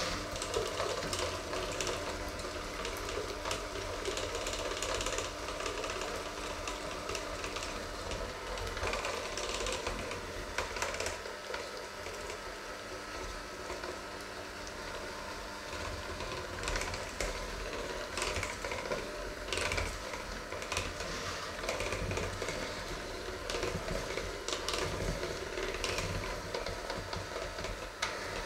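Electric hand mixer running steadily, its twin beaters whisking a liquid egg mixture in a stainless steel bowl, with frequent clicks of the beaters knocking against the bowl's side.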